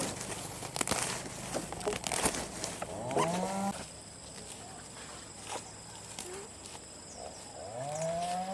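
Cattle mooing twice: a short call rising in pitch about three seconds in, and another near the end. Scattered clicks and knocks come before the first call.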